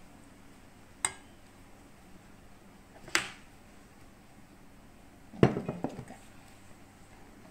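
Kitchenware knocks as a ceramic mug of yogurt is emptied into a stainless steel mixing bowl and set down. There are three sharp knocks: a light one about a second in, a stronger one about three seconds in, and the loudest a little past five seconds, followed by a few smaller rattles.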